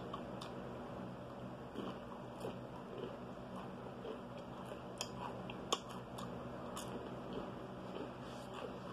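A person chewing food, with soft, scattered mouth clicks.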